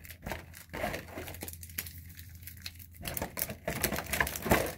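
Foil Pokémon booster packs crinkling and rustling as hands pick them up and stack them, with light clicks against the clear plastic packaging tray; busier and louder in the last couple of seconds.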